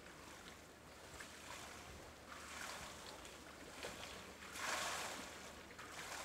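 Faint swimming-pool arena ambience: a soft, hiss-like noise that swells twice, around two and a half and five seconds in.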